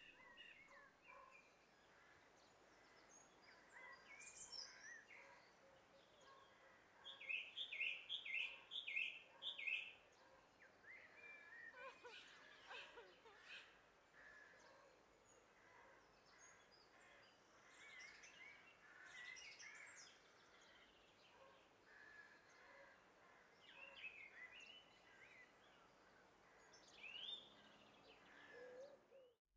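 Faint birdsong, scattered chirps from small birds. About a quarter of the way in, one bird repeats a short note about six times in quick succession, louder than the rest.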